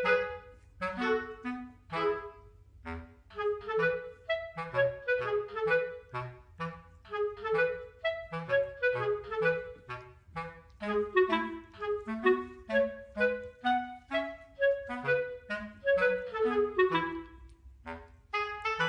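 Background music: a lively melody of short, separate notes on a woodwind instrument.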